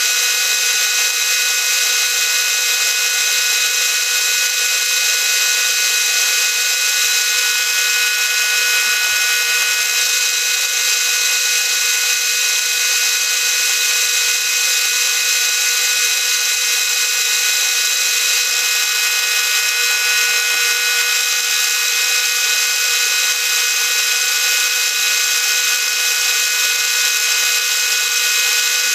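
Milling machine running steadily with a 3/4-inch end mill cutting 316 stainless steel at about 260 rpm: an even, unbroken high whine with several steady tones.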